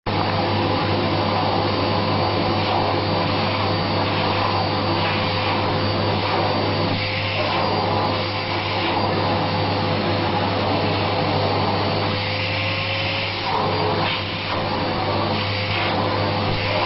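Vacuum cleaner running steadily while its nozzle is drawn over a cat's fur to groom it. The level dips briefly a couple of times.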